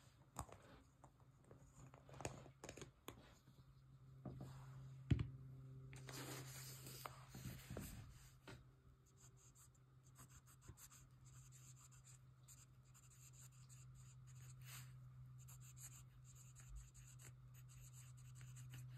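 Faint scratching of a broad-nibbed Nahvalur Nautilus fountain pen writing on paper, in short strokes. In the first few seconds there are small clicks and a knock as the freshly inked pen is handled. A low steady hum runs underneath.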